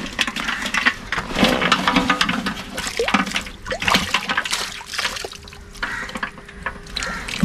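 Shallow water sloshing and splashing in irregular surges.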